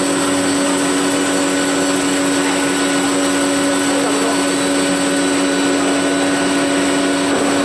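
CNC plate drilling machine running steadily while it bores holes in a metal plate. It makes a constant hum with a thin high whine over an even mechanical hiss.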